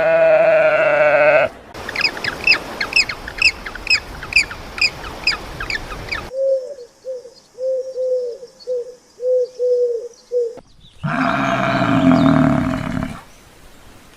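A series of different animal calls cut one after another. It opens with a short harmonic call like a bleat, followed by about four seconds of rapid, high, repeated bird chirps. Then comes a run of short low notes, about three a second, and near the end another loud call with many harmonics.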